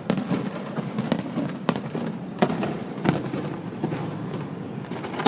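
Aerial fireworks bursting: a run of sharp bangs every half second to second, the loudest about two and a half seconds in, over a steady low rumble, picked up by a phone's microphone.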